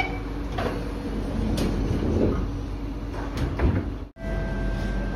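MRT train's sliding passenger doors closing, a few clunks and knocks over a steady rumble. About four seconds in the sound cuts off abruptly and a steady hum with a thin tone follows.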